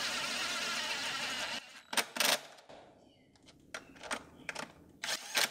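A steady rushing noise for about a second and a half, then a run of sharp clicks and knocks as a cordless driver and parts are worked on top of the engine's intake manifold. The loudest are two quick pairs, about two seconds in and near the end.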